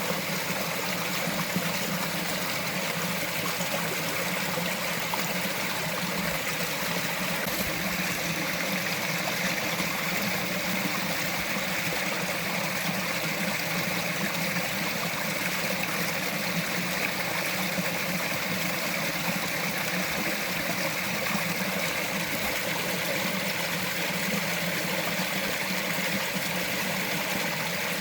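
Small forest stream running over rocks: a steady, even water noise that does not change.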